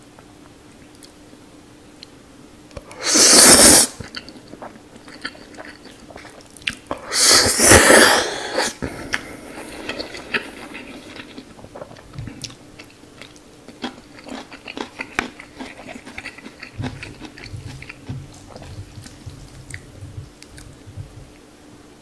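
Close-miked eating of instant noodles: two loud slurps of noodles, about three and about seven seconds in, then chewing with many small wet mouth clicks.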